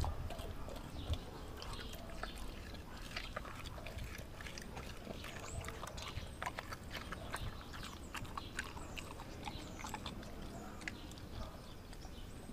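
Doberman eating raw meat from a stainless steel bowl: wet chewing and licking, with many small irregular clicks and crunches.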